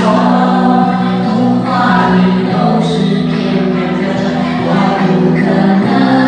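Music with a choir singing long held notes, changing chord a few times.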